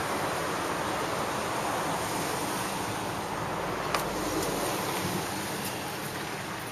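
Steady road traffic on a city street: cars and a truck passing as an even rushing noise, with one sharp click about four seconds in.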